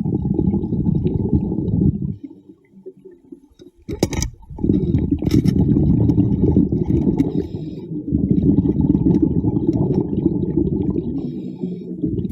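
Muffled underwater rumble and bubbling, with a few sharp clicks about four and five seconds in.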